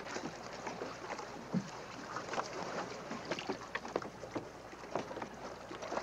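Light, scattered knocks and scuffs of people climbing a wooden ladder from a rowboat up onto a dock, over a faint steady background of water and wind.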